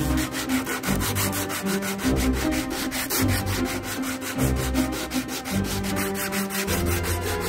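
Hand sanding block with abrasive paper rubbing back and forth on the edge of a solid wooden box, in a quick run of even strokes.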